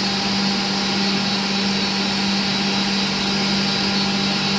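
Steady hum and rushing air of running woodworking machinery, a constant motor drone with a low steady tone under it and no change throughout.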